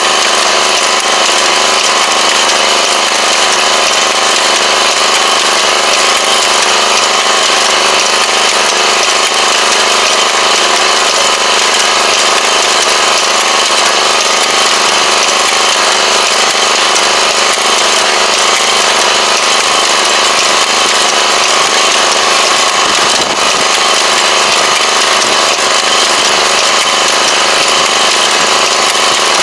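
Tobacco transplanter's small engine running steadily as the machine plants seedlings, a loud, even drone with no change in speed.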